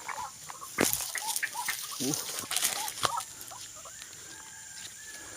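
White-breasted waterhen caught in a fishing-line snare, its wings flapping and water splashing as it struggles, with a few sharp knocks and short low calls.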